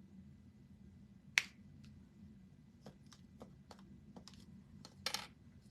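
A sharp click, then a string of lighter clicks and taps, and a short scrape about five seconds in: small craft tools and pieces being handled on a work table, over a low steady hum.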